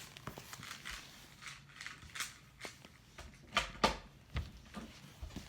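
Rubik's cubes being handled: scattered light plastic clicks and rustles, with a few sharper knocks about three and a half to four seconds in.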